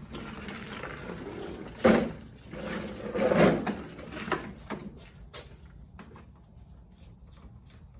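Knocks and clatter from a walk-behind lawn mower being handled and looked over: a sharp knock about two seconds in, a louder scraping clunk a second or so later, then a few light clicks.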